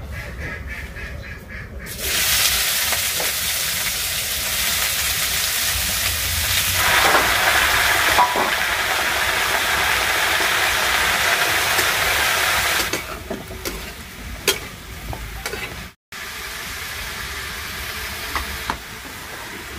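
Shredded cabbage and brinjal tipped into hot oil with a dried red chilli tempering in a kadhai over a wood-fired clay stove, sizzling loudly. The sizzle starts about two seconds in, grows stronger for several seconds, then settles to a lower sizzle with a few light knocks of the spoon against the pan.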